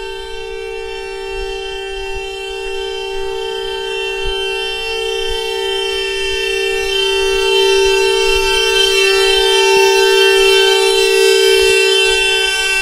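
Car horn held down in one long, steady two-note blare that grows louder partway through.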